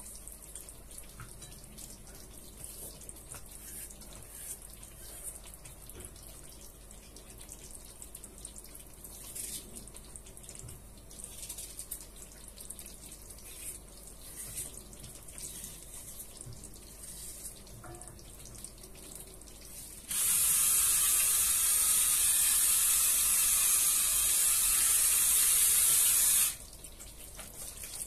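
Faint sizzle of potatoes frying in oil. About twenty seconds in, a loud, steady rushing hiss starts abruptly, lasts about six seconds and cuts off suddenly.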